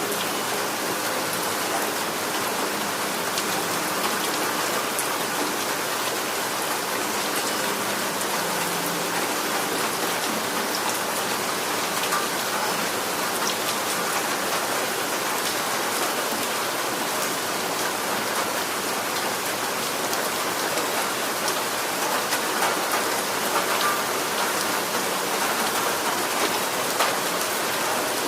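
Steady rain falling, with many individual drops ticking against a surface through an even hiss.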